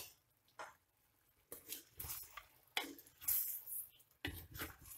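A wooden spoon stirring chicken pieces in a heavy black cooking pot. It comes as a few short bursts of scraping and squelching, with quiet gaps between them.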